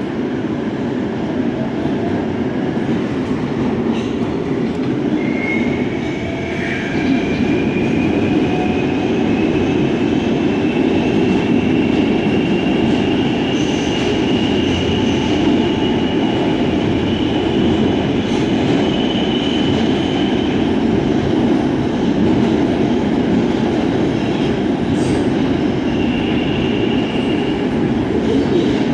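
R143 subway train running through a tunnel: a steady rumble of wheels on rail, with a thin high tone that rises slowly from about five seconds in to about twenty seconds in.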